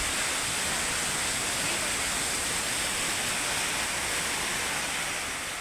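Rain falling steadily, an even hiss that begins to fade near the end.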